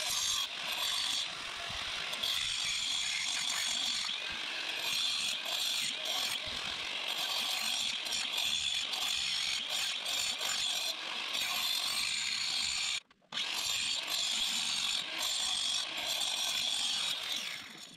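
Right-angle grinder with a diamond disc cutting into a brick and stone wall, a steady high whine over gritty grinding, to cut a chase for water pipes. The cut stops for a moment about two-thirds of the way through, then the grinder runs again and stops near the end.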